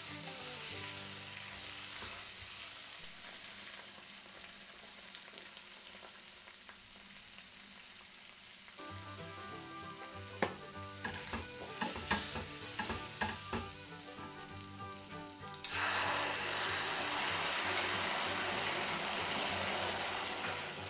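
Onions and green bell peppers sizzling as they are stir-fried in a coated frying pan, with the spatula clicking and scraping against the pan about ten to fifteen seconds in. About five seconds before the end, sauce poured into the hot pan sets off a sudden, much louder sizzle.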